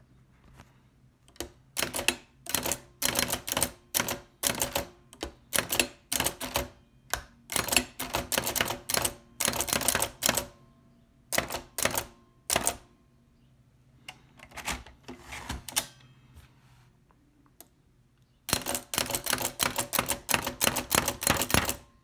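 1908 Hammond No. 2 typewriter being typed on, each key stroke a sharp clack of its hammer striking the type shuttle from behind. The strokes come in quick runs with pauses of a second or more between them, and the fastest run comes near the end.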